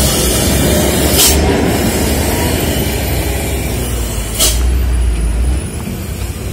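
A loaded dump truck's diesel engine rumbling heavily as it passes close by on a steep descent, with two short, sharp air-brake hisses, about a second in and again about four and a half seconds in. The rumble drops off near the end.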